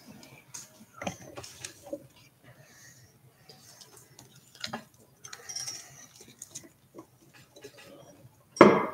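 Scattered light clicks, taps and knocks of a phone being handled near the microphone, with a louder noise near the end.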